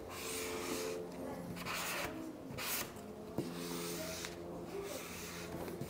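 Hand squeegee rubbing across a wet-applied vinyl film on a Jeep hood, in several long scraping strokes with short pauses between them, over a faint steady hum.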